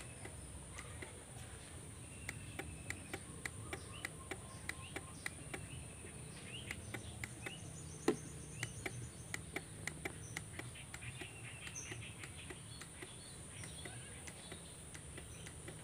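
Scooter starter relay clicking, a quick light "ctik" about twice a second with one louder click about halfway through, while the starter motor does not crank. It is the sign of a starting fault that turns out not to lie in the starter motor itself. Birds chirp faintly behind.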